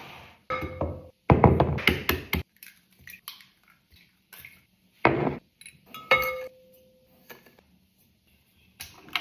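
Kitchen clatter: dishes, pans and cutlery knocking and clinking in several short bursts, some strikes leaving a brief ringing tone.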